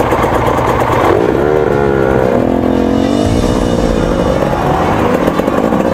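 KTM TPI two-stroke enduro dirt bike engine being ridden on a trail, the throttle opening and closing so the pitch swoops up and down several times.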